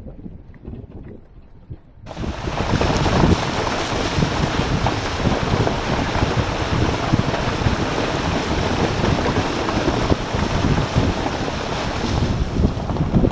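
Four-by-four pushing through shallow floodwater on a trail: a steady rush of splashing water mixed with wind buffeting the hood-mounted camera's microphone. It starts abruptly about two seconds in, after a quieter low rumble of the vehicle on a dirt track.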